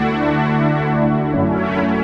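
Korg Poly-61 six-voice analogue synthesizer playing sustained chords over a held bass note. The chord and bass change about one and a half seconds in.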